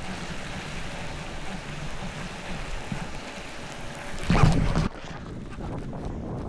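Wind buffeting the microphone on a fishing kayak on open water, over a steady low hum. A louder gust of noise comes about four seconds in and lasts about half a second.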